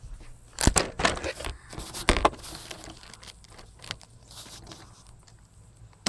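Remote-control buggy jolting over rocky ground, picked up by the phone strapped to it: a few sharp knocks and crunches, the loudest about two-thirds of a second in and around two seconds in, with quieter crackling between.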